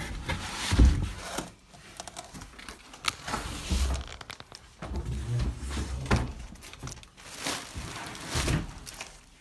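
A cardboard TV box and its plastic wrapping being handled: rustling and crinkling, with several dull bumps.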